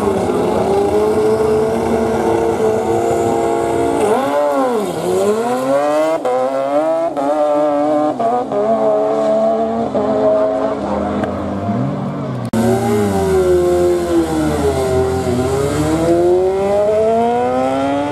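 Superbike engines at a drag strip. First revs are held steady on the start line, then the bike launches: the revs dip and climb, rising in steps through quick upshifts. After an abrupt break, another bike's engine dips and then winds up again.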